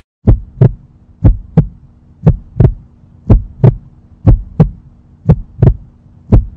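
Heartbeat sound effect: double lub-dub thumps about once a second, seven beats in all, over a steady low hum.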